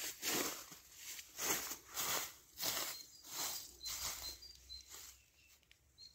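Footsteps crunching through dry fallen leaves, a step roughly every half second to second, dying away near the end. Faint short bird chirps sound above them.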